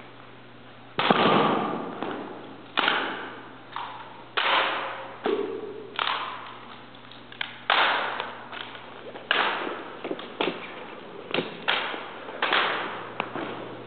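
Rifle drill: a series of sharp slaps and thuds, hands striking drill rifles and rifle butts grounding, about a dozen strikes roughly a second apart. Each strike echoes in a large hard-walled hall.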